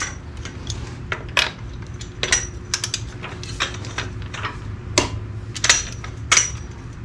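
Irregular metallic clicks, clinks and knocks of hand tools and a socket working on a motorcycle's swing arm bolt, some strokes ringing briefly. A low steady hum runs underneath.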